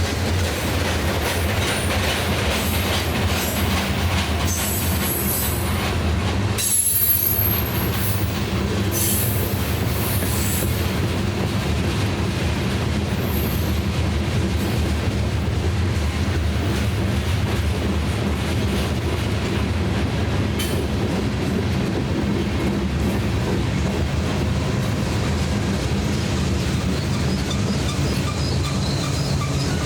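Freight cars of a BNSF rock train rolling past steadily, a continuous rumble of wheels on rail, with high-pitched wheel squeals during the first ten seconds or so.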